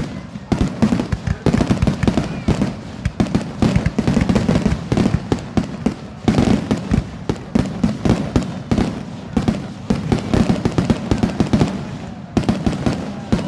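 Fireworks bursting in rapid, dense succession, many loud bangs a second overlapping one another, with a short lull near the end.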